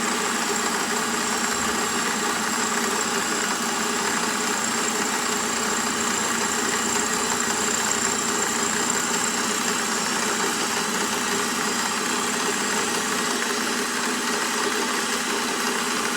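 Milling machine running steadily while cutting a slot in steel bar stock, a constant machine whine with several steady tones.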